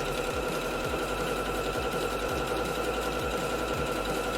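Singer Featherweight sewing machine running steadily, a continuous mechanical hum with a faint low knocking underneath.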